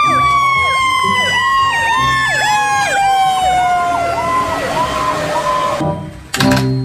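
Fire truck sirens: one wail falls slowly and steadily in pitch while a second siren yelps in fast repeating swoops over it. Both cut off suddenly near the end.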